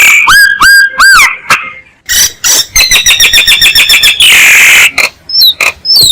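Myna calling loudly: short arched whistles, then a fast rattling run of notes lasting under two seconds, a harsh screech, and quick falling whistles near the end. This is a recorded lure call meant to draw mynas in.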